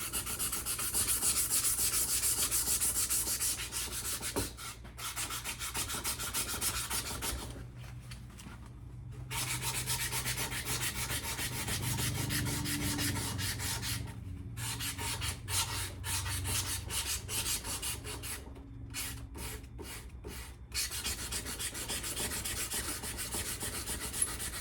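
Sandpaper scrubbing hard and fast against an old rusted axe head, a continuous gritty rasp that stops briefly a few times. The paper is being worn through.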